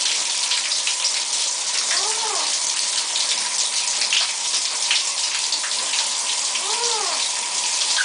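Shower spray hissing steadily onto a tiled wall and an Eclectus parrot bathing under it. Twice, about two seconds in and again near seven seconds, a short rising-then-falling whistled call sounds over the water.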